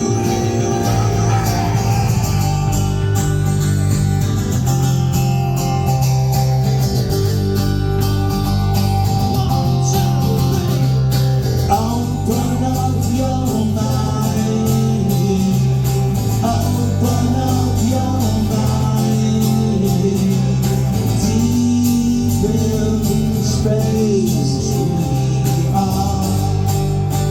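Rock band playing live: guitars over steady, held bass notes, with a singing voice in places.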